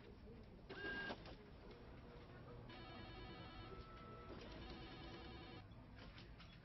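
Faint office background sounds: a short tone about a second in, then a faint electronic telephone ring, trilling for about three seconds before it stops.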